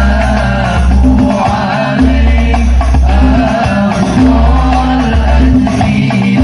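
Banjari-style hadrah music: frame drums with tambourine-like jingles over deep bass notes about a second long, and a wavering sung melody on top.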